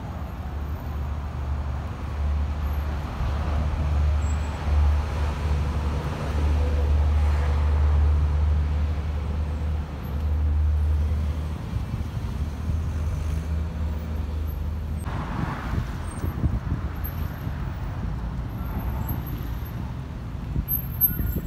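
City street traffic: car engines running close by, a steady low rumble that fades about halfway through, leaving a lighter traffic hiss.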